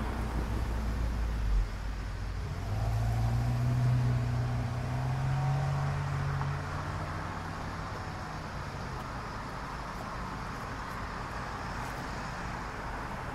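A motor vehicle driving past on the road, its engine note rising a little, loudest from about three to six seconds in, then a steady traffic rumble. A short bump about a second and a half in.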